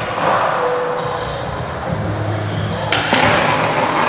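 Skateboard wheels rolling on a smooth concrete floor, then a sharp pop and clack about three seconds in as the board goes up onto a ledge, followed by the board grinding along the ledge's metal edge.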